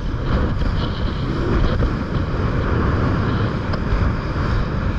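Small motorboat under way on choppy sea: a steady, loud rush of wind on the microphone, with water against the hull and the boat's engine beneath it.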